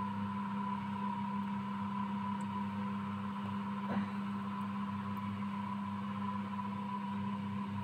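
A steady low hum, with a faint tap about four seconds in.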